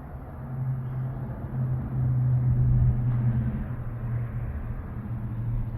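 Semi truck engine running at idle, a steady low hum that swells slightly partway through.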